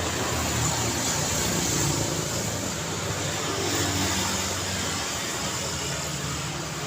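Street traffic: cars and engines passing on a city road, a steady wash of tyre and engine noise with low engine hum, swelling slightly as vehicles go by.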